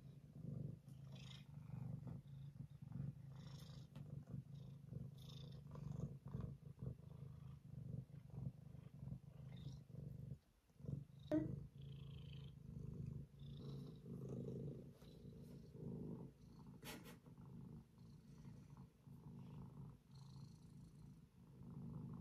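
Domestic cat purring steadily and softly, close by, with a short break about ten seconds in.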